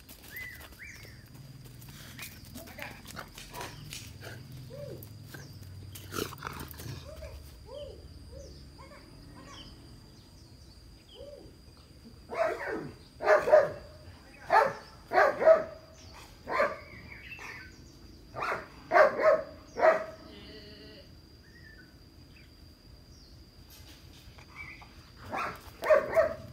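Rottweiler barking: a run of about ten short barks, some in quick pairs, starting about halfway through, then two more near the end.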